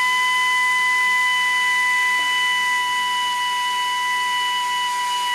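Electric drill running at a steady speed with a high, steady whine, driving a Rescue Bit extractor into a hardened cobalt drill bit broken off in a bolt.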